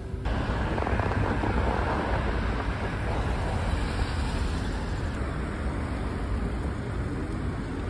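City street traffic noise, steady and even, cutting in abruptly a moment in after a brief quieter hum inside a tram or train carriage.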